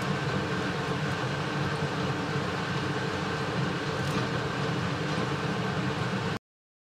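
Samosas deep-frying in a pan of hot oil: a steady sizzle, cutting off abruptly near the end.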